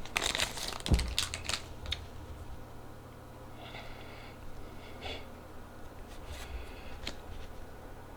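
Handling trading cards fresh out of a booster pack: clicks and rustles with a soft knock about a second in, then fainter sliding and rustling of the cards.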